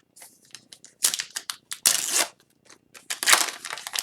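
Foil trading-card pack wrapper crinkling and rustling in the hands, in a few short bursts about a second apart.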